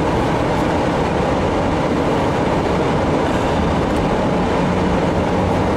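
Steady, loud rumble of a truck driving through deep snow, with engine and road noise and a faint low hum that firms up about four seconds in.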